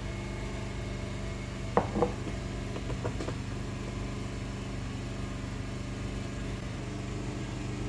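A steady low mechanical hum, with two light knocks about two seconds in and a fainter one a little later.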